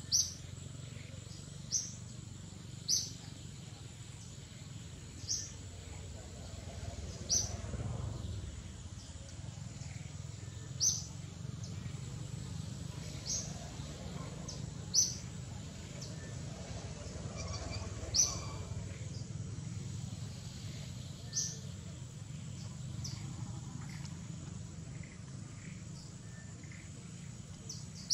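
A bird's short, high chirps, repeated about a dozen times at uneven gaps of two to three seconds, over a steady low rumble.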